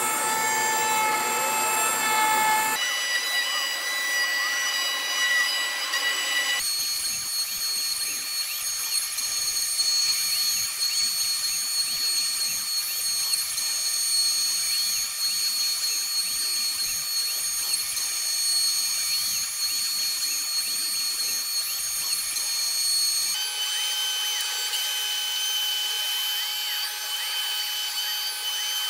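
A Shapeoko 4 XXL CNC router's spindle whines at high speed while its end mill cuts a contour into an anodized aluminum plate, with a fine scratchy chatter of metal cutting under the whine. The pitch of the whine shifts abruptly three times.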